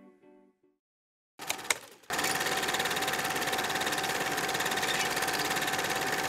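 Guitar music fades out, and after about a second of silence two sharp clicks are followed by a steady, very fast mechanical rattle with a constant whine in it.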